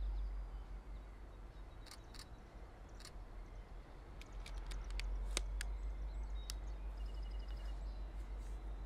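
Low, steady rumble of a slow-moving freight train of boxcars rolling along the tracks, with a few short bird chirps and sharp clicks scattered over it and a brief rapid high trill near the end.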